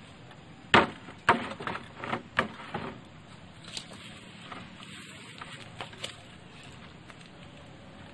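Hollow bamboo poles knocking against each other as they are handled and strapped onto a motorcycle's load rack: a quick run of sharp knocks in the first three seconds, then a few lighter clicks.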